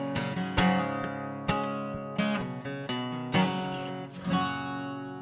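Acoustic guitar strummed in an instrumental passage of a country song, each chord struck and left to ring. The strums thin out and the sound fades a little near the end.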